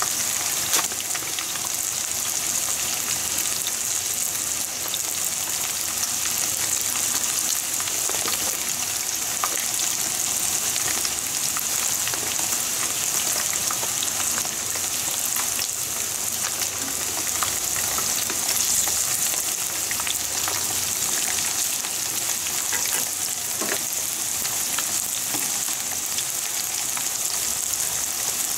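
Hot oil sizzling steadily with small scattered pops as coated pieces of karaage deep-fry in a pan.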